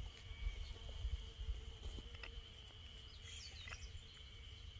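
Faint outdoor ambience: low wind rumble on the microphone, a steady high-pitched whine, and a short chirping bird call a little past halfway.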